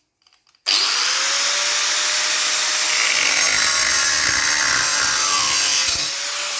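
A power cutting tool starts up about half a second in and cuts off a copper rivet pin, its motor note rising as it spins up and holding steady under the cut. The note starts falling as it winds down near the end.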